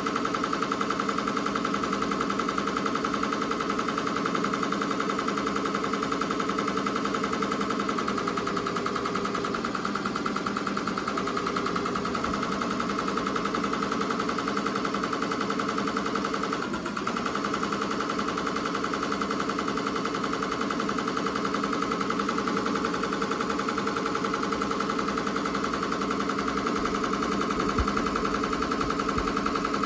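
Ricoma MT-2002-8S multi-needle embroidery machine stitching at speed: a steady, fast, even needle rhythm as it sews a satin-stitch letter in orange thread into terry towelling. A couple of low knocks come near the end.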